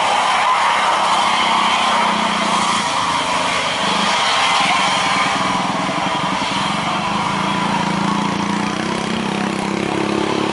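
A motor vehicle's engine running steadily, its hum shifting slightly in pitch, with road and wind noise.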